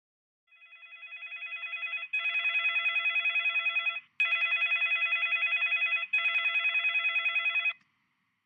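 Telephone ringing with a fast trilling ring. It swells in over the first second and a half or so, then rings three times with short gaps between.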